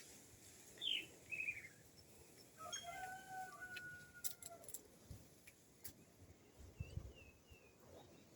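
Birds calling faintly: a couple of quick falling chirps about a second in, then a longer drawn-out call lasting nearly two seconds, and a few soft chirps near the end.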